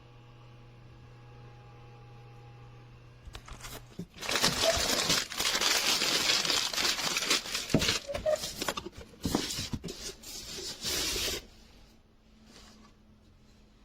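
A steady low hum, then from about four seconds in some seven seconds of loud crinkling and rustling, like something being handled or crumpled, which stops suddenly near the end.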